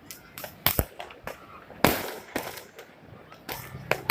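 New Year fireworks going off: a run of irregular sharp bangs, some with a short echo, the loudest about two seconds in.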